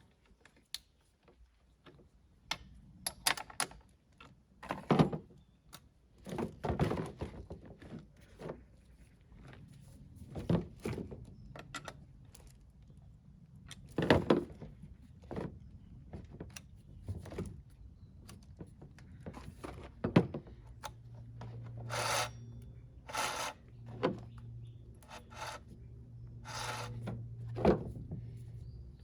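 Objects being handled and unpacked: irregular knocks, clicks and rubbing scrapes, some sharper knocks near 5, 14 and 20 seconds in.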